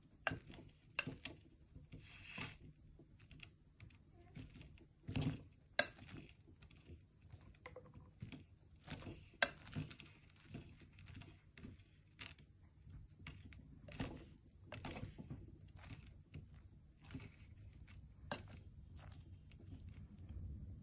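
A metal spoon scooping biryani from a clay handi pot: irregular soft scrapes, clicks and knocks of the spoon against the pot and through the rice.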